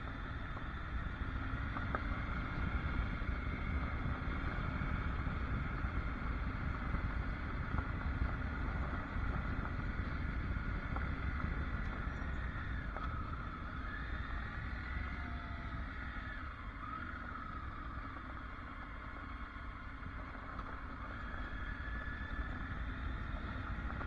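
Triumph Tiger adventure motorcycle riding along a gravel road: its three-cylinder engine running under steady rumbling wind and road noise. The engine note drops and climbs again about halfway through.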